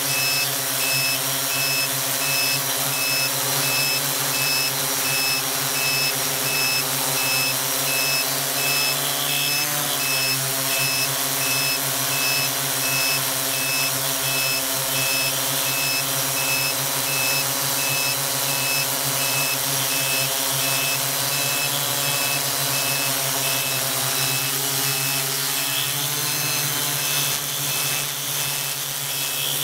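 Electric motors and propellers of a radio-controlled aircraft carrying the camera, running with a steady buzz. Their pitch wavers briefly about ten seconds in as the motor speed changes.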